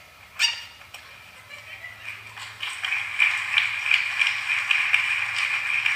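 A sharp knock about half a second in, then audience applause that starts about two seconds in and grows louder.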